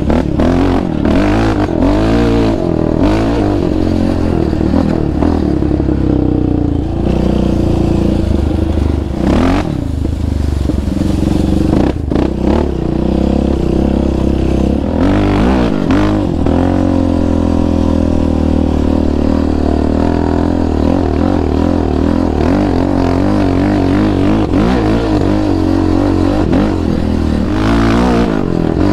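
A sport quad's single-cylinder engine being ridden hard over a trail, its revs rising and falling again and again as the throttle is worked. Now and then there are clattering knocks.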